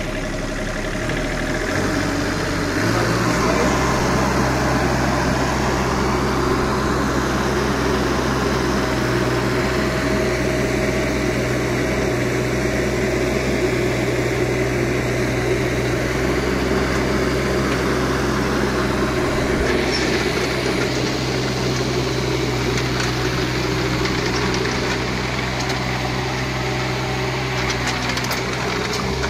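JCB 16C-1 mini digger's Perkins diesel engine running just after starting. Its speed steps up about two to three seconds in, then it holds a steady, even note while the boom and bucket are worked.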